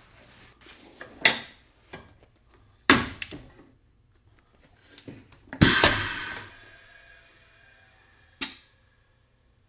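Shoe sole press being loaded with a resoled boot: a few sharp metal knocks and clunks as the sole is set against the press pad. Then, about halfway through, one loud clank that rings on and fades over about two seconds, and a last knock near the end.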